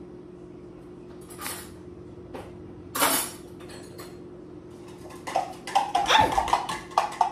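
Cup and utensil clatter as a drink is mixed: a couple of brief rustling scrapes, then from about five seconds in a rapid run of ringing clinks and rattles.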